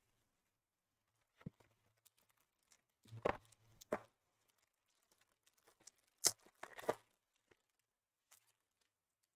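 Plastic wrapper of a Topps Inception baseball card pack being torn open and crinkled, in a few short rips and rustles, the sharpest a little after six seconds in.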